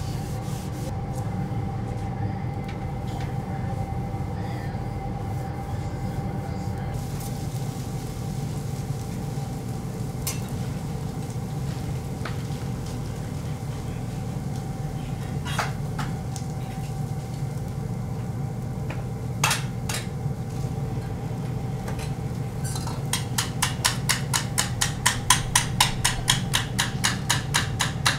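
Diner ambience: a steady hum of kitchen equipment with a few sharp clinks of dishes and utensils. Near the end a fast, even ticking starts.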